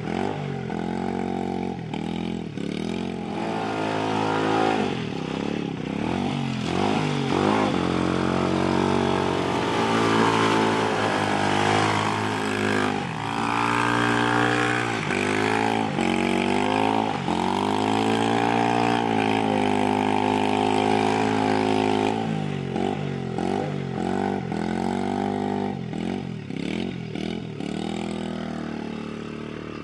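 A 150cc ATV's single-cylinder engine revving up and down again and again, the throttle opened and closed as the quad spins and slides through mud.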